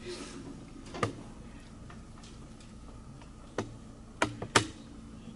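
A few scattered sharp clicks and knocks over a low steady room hum, the loudest two close together about four and a half seconds in.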